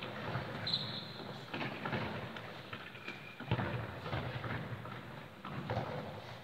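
Indoor football being played on a sports hall floor: several thuds of the ball being kicked and bouncing, with players' running footsteps, echoing in the large hall. Two short high squeaks of trainers on the floor, about a second in and again past the middle.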